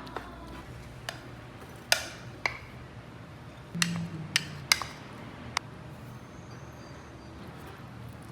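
Kitchen dishes and utensils clinking and knocking: about eight sharp, separate clicks spread through, with a faint low hum underneath.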